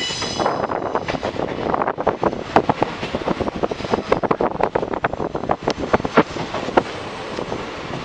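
Passenger train running at speed, heard from inside a coach: a steady rush of wheel and wind noise with many irregular clicks, knocks and rattles.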